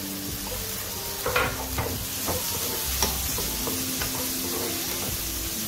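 Chopped onion, green chillies and tomato sizzling as they are sautéed in a non-stick frying pan and stirred with a wooden spatula, with a few sharp knocks of the spatula on the pan in the first half.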